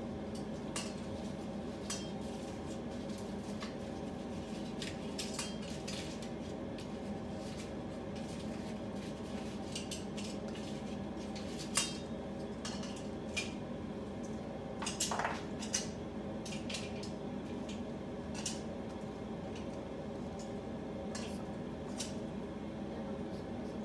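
Scattered light clicks and clatters of bamboo skewers and food against a bowl and a cutting board as pieces of meat are threaded onto skewers, over a steady hum. The sharpest click comes about halfway through, with a short cluster a few seconds later.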